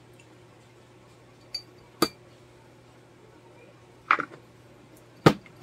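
Several short, sharp clinks and taps as an electric power steering control module with its metal bracket is handled and set down on a workbench. There are about five of them, spaced irregularly, and the loudest comes near the end.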